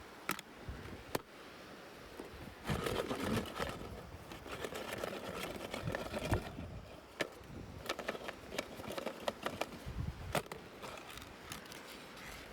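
Small plastic toy packaging and pieces being handled: rustling and scraping, with sharp clicks of plastic on plastic.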